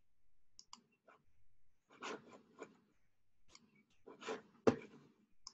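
Faint scattered clicks and short rustles of handling at a computer desk, with one sharper click about four and a half seconds in.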